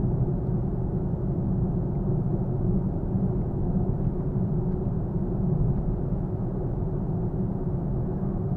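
Steady engine and road noise of a Nissan Fuga 370GT's VQ37VHR V6 while driving at an even pace.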